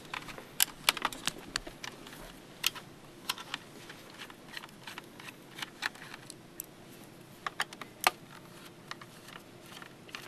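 Irregular sharp clicks and taps of the plastic parts of an OLPC XO laptop and small tools being handled during disassembly, with the loudest clicks near the start and about eight seconds in.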